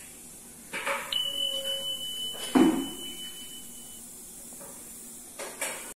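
A steady high-pitched beep lasting about three seconds, with a single loud knock partway through it.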